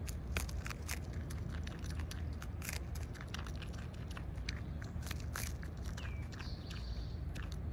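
Groundhog biting and chewing kernels off an ear of corn: a run of irregular, short crunching clicks.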